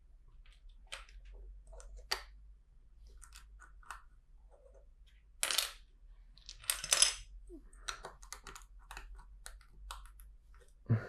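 Loose plastic LEGO bricks clicking and clattering as hands sort through a pile of pieces, with scattered single clicks and two louder rummaging clatters a little past the middle.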